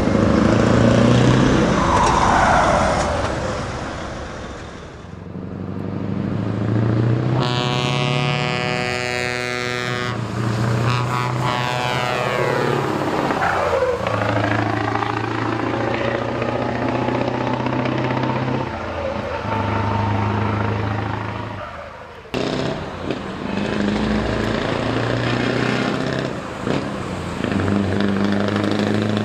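Heavy show trucks with loud open exhaust pipes pulling away and driving past, the engine note rising and falling as they accelerate and pass. A truck horn sounds for a couple of seconds about eight seconds in.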